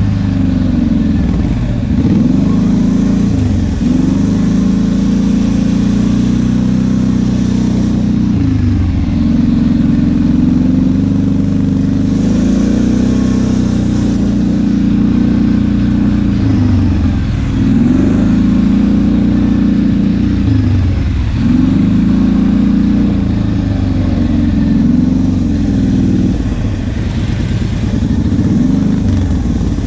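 ATV engine running under way, its pitch dipping and climbing again every few seconds as the throttle is eased off and opened.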